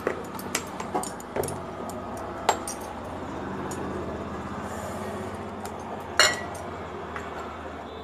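A spatula and a steel bowl clinking against the rim of a stainless-steel pot of batter as the batter is stirred and an ingredient tipped in: several light clinks in the first few seconds and one louder ringing clink about six seconds in, over a steady low hum.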